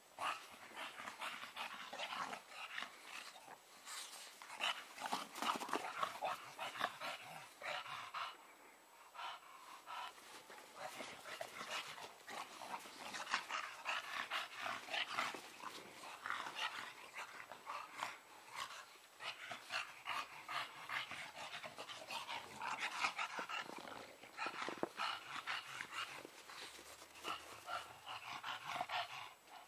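Bulldog puppies panting and growling in play as they romp together in snow, a rapid, continuous run of short sounds that swells and fades.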